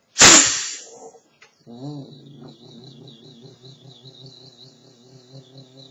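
Vocal imitation of a Detroit Diesel bus: a loud, sharp hiss of the air parking brake being set, fading within a second, then from about two seconds in a low, evenly pulsing buzz of the diesel engine idling.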